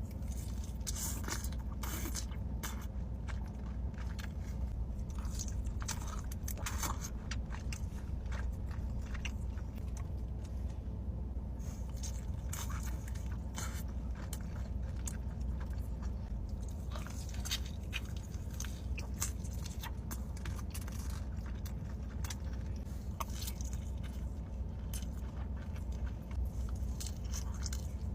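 Someone eating chicken: irregular bites and crunching chews, close to the microphone, over a steady low hum.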